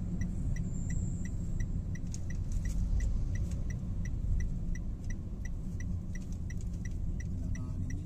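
Car turn-signal indicator ticking steadily, about two to three clicks a second, over the low, steady road and engine rumble inside the cabin.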